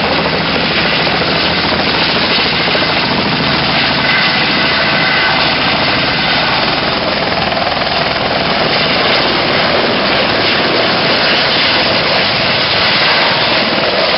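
Eurocopter EC130 helicopter's turbine engine and rotors running at lift-off power as it lifts from the pad, hovers and climbs away: a loud, steady rush of rotor and engine noise.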